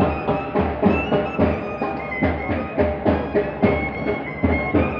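Live band music: drums beating a steady march rhythm of about two to three strokes a second under a held wind-instrument melody.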